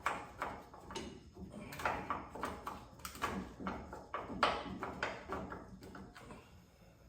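Irregular metallic clicks and knocks of hand tools on a car door's hinge bolts as they are threaded in and snugged lightly, a few strikes a second, dying away about six seconds in.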